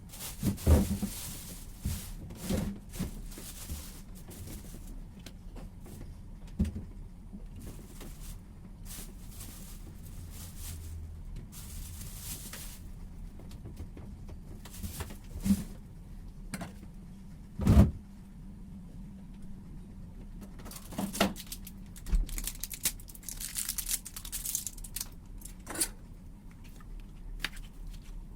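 Handling noises from cooking preparation: scattered knocks and clicks, with a few short rustles, over a steady low hum.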